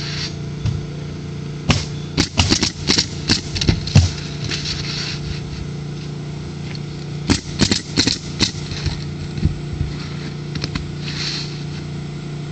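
Pneumatic roofing nailer firing into asphalt shingles in quick runs of sharp shots: a run of about eight shots about two seconds in, another short run about seven seconds in, and a few single shots later. A steady low hum runs underneath.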